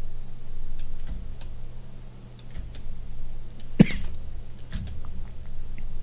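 A single short, sharp sound about four seconds in, over a steady low hum and faint scattered clicks.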